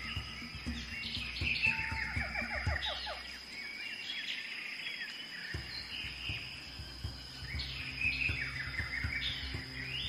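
Rainforest ambience: birds calling in repeated runs of quick falling chirps and trills over a soft, low music drone, which drops out for about a second and a half around four seconds in. A thin, steady high tone runs underneath.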